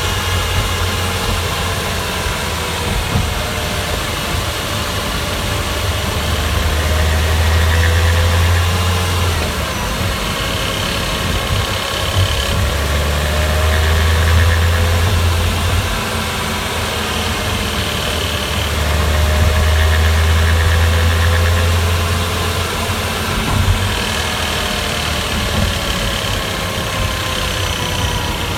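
Porsche Boxster 986 S 3.2 flat-six engine while driving, its revs rising and falling, with an intermittent rattle from the right-hand side. The rattle comes only on overrun, when the throttle is lifted and the engine brakes the car, and stops as soon as any throttle is applied.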